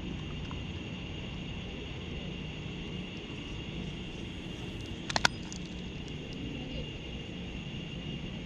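Steady outdoor background: a constant high insect drone over a low rumble, with a quick cluster of three sharp clicks about five seconds in.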